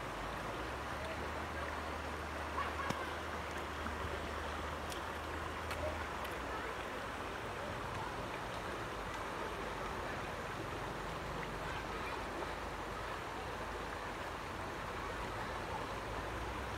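Shallow mountain stream flowing, a steady rush of water with a few faint clicks.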